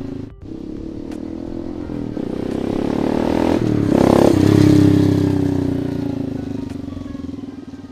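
125cc single-cylinder air-cooled engine of a Monkey Racer replica motorcycle running as the bike rides past. It grows louder to a peak about halfway through, then fades as the bike moves away.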